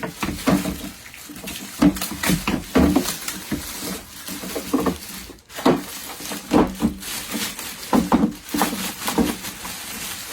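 Plastic packaging being pulled off a humidifier and its hard plastic parts handled: irregular rustles, clicks and knocks.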